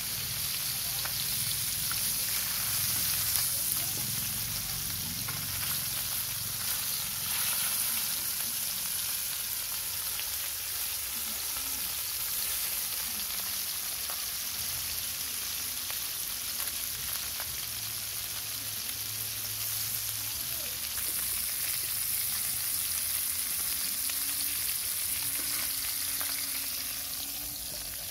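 Turmeric-and-chilli-marinated catfish pieces sizzling as they shallow-fry in hot oil, a steady hiss with scattered small pops.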